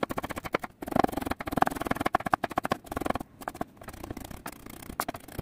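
Chef's knife chopping and mincing onion on a wooden cutting board: rapid runs of knife knocks on the wood, with a few brief pauses.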